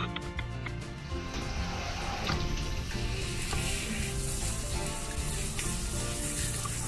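Water hissing steadily from a handheld shower head as it sprays onto and rinses a wet Pomeranian's coat, with background music underneath.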